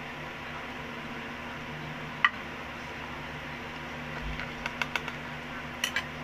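Light clicks and taps of a plastic scoop against a ceramic bowl and plastic ice candy bags as the mixture is spooned into the bags, one sharp click about two seconds in and a few more near the end, over the steady hum of an electric fan.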